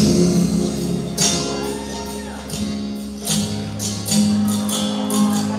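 A song playing, with a voice singing over a steady beat.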